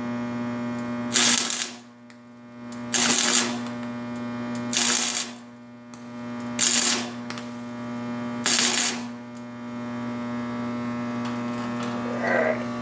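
Slag being knocked and scraped off a fresh stick weld on a stainless steel exhaust tube: five short scraping strokes about two seconds apart, over a steady electrical hum.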